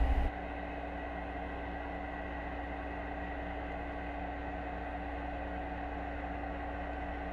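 Steady underwater noise with a low, even hum, recorded by a GoPro camera in its waterproof housing.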